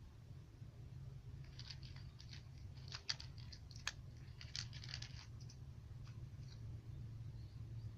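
A cat crunching dry kibble: a run of irregular crisp crunches, busiest through the middle, over a low steady hum.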